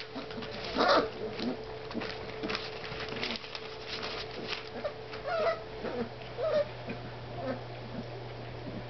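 Four-week-old basset hound puppies at play: short, high yips and squeaks, the loudest about a second in, over the crinkle and rustle of newspaper under their scrambling paws.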